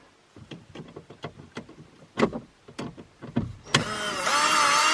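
A few light clicks and taps as a Torx bit is set in a screw head, then near the end a cordless drill-driver's motor whines steadily, backing out a T20 Torx screw that holds the car radio in.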